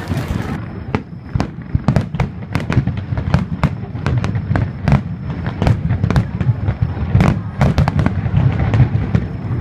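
Aerial fireworks bursting in quick succession: sharp cracks two or three times a second over a continuous low rumble.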